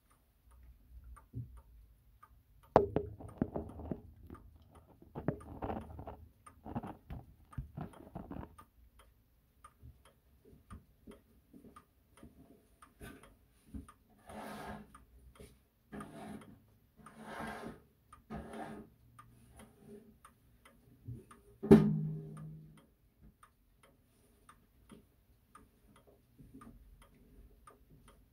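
A pendulum wall clock's movement ticking steadily, with knocks and rubbing as the case is handled in several stretches, and one loud knock with a short low ring a little over 20 seconds in.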